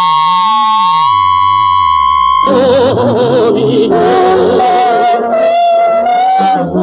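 Music on the soundtrack: a held, high electronic-sounding tone over slowly sliding lower tones, cut off abruptly about two and a half seconds in by music of several wavering notes with vibrato.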